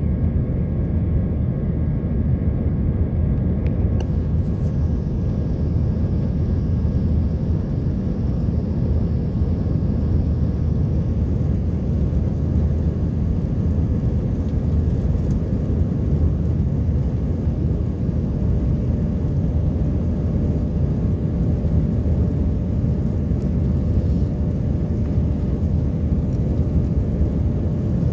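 Airbus A320 cabin noise in flight shortly after takeoff: a steady, even rumble of the engines and airflow heard through the fuselage, with a few faint steady tones above it.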